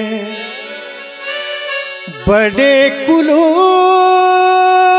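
Hindi ghazal performance: a harmonium and a male voice, with the sung phrase dying away over the first two seconds. About two seconds in, two deep tabla strokes land. A new phrase then begins and the harmonium settles into a steady held note.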